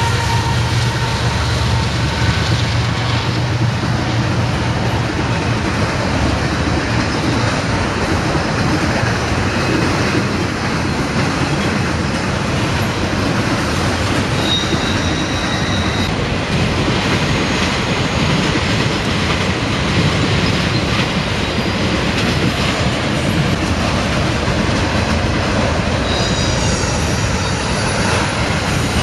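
Freight train passing close at speed: the Union Pacific diesel locomotives' engines run by in the first few seconds, then autorack cars roll past with steady wheel-and-rail noise. A couple of brief high wheel squeals come about halfway through and again near the end.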